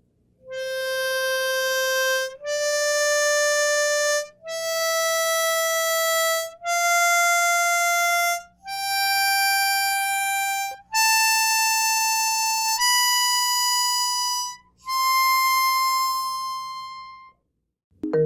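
Diatonic harmonica in C playing the C major scale up from hole 4 to hole 7, alternating blow and draw notes: eight long notes, C D E F G A B and the high C, each held about two seconds, with the last one fading out.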